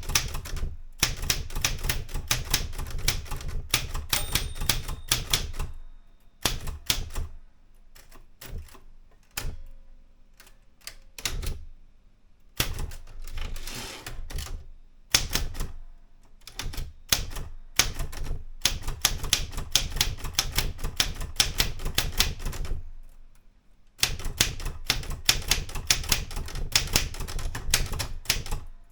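Erika 105 manual portable typewriter being typed on: fast runs of key strikes, thinning to scattered strikes for a few seconds about a quarter of the way in, and a short pause near the end.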